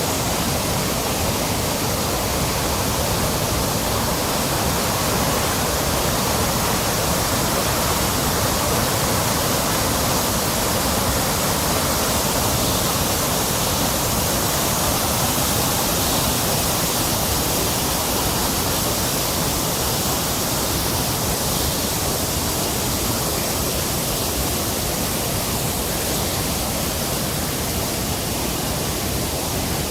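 Waterfall on a normally small hillside rivulet, swollen by heavy rain into a powerful fall: a steady, unbroken rush of water.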